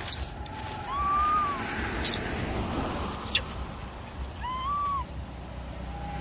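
Long-tailed macaques calling: two short arching coos and three brief, shrill squeaks that fall in pitch. The squeaks are the loudest sounds.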